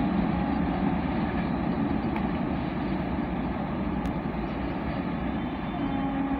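Train hauled by a WAG-7 electric locomotive moving away along the track: a steady rumble of wheels on rails that eases a little toward the end. A steady tone comes in near the end.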